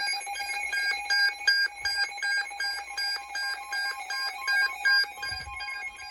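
Electronic alert beeping from a weather alert receiver, short beeps about three a second, marking an incoming severe thunderstorm warning. A soft low thump comes about five seconds in.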